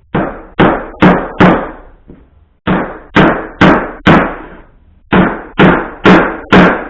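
Axe multitool's hammer head driving a small nail: twelve sharp blows in three runs of four, each blow ringing briefly.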